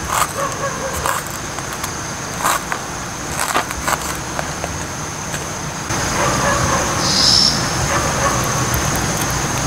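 Knife slicing chillies on a metal camping plate, the blade clicking against the plate in irregular taps for the first few seconds. Underneath runs a steady high thin tone and a low rumble, which grows louder about six seconds in.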